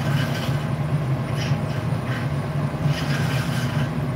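The gas-fired glory hole and furnace burners of a glassblowing studio running steadily: a constant low hum with a hiss above it.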